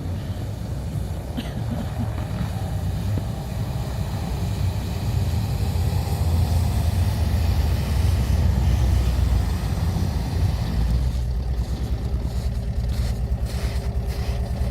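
Engine running steadily with a low hum, growing louder about a third of the way in and staying up, with a few clicks near the end.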